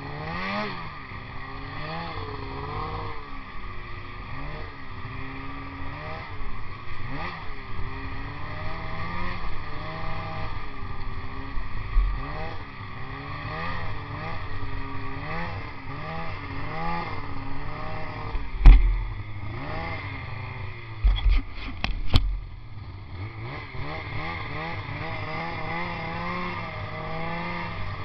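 Polaris snowmobile engine revving up and easing off over and over as the sled is ridden. There is one loud, sharp knock about two-thirds of the way through, and a quick cluster of knocks a couple of seconds later.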